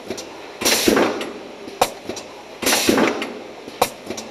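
QGQ750 automatic aerosol filling line's pneumatic heads cycling about every two seconds: two half-second blasts of air hiss, each followed about a second later by a single sharp clack.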